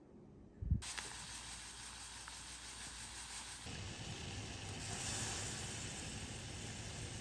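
Strawberry syrup bubbling hot in a stainless steel pot, a steady hiss and sizzle that starts suddenly about a second in, after a soft low thump.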